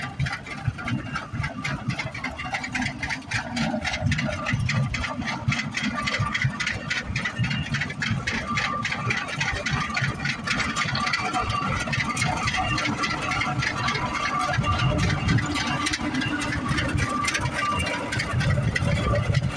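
Rumely OilPull tractor engines running, a steady, rapid run of exhaust beats, with wind buffeting the microphone.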